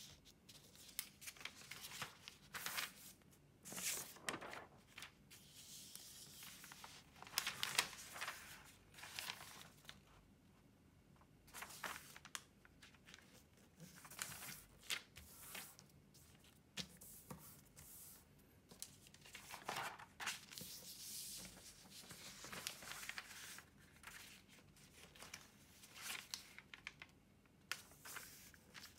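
A large sheet of origami paper rustling and crinkling as it is turned over and folded, with hands sliding across it to press the creases flat. The sounds come in irregular bursts with short quiet gaps.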